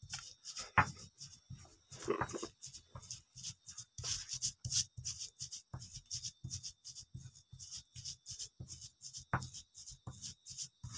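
Stone pestle grinding chillies in a stone mortar, in quick, regular scraping strokes, several a second.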